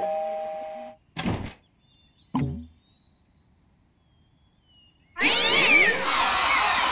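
Cartoon sound effects at a door: two short thuds, one about a second in and a sharper one a second later, then after a pause a sudden loud clamour of many high squeaks and sweeping sounds.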